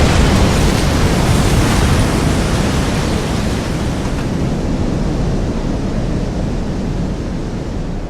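Designed tsunami sound effect: a loud, dense rush of churning water with a deep rumble beneath it, slowly easing off.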